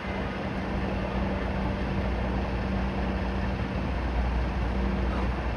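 Steady drone of a crane's engine running during a lift, with a constant low hum and rumble that grows a little louder in the second half.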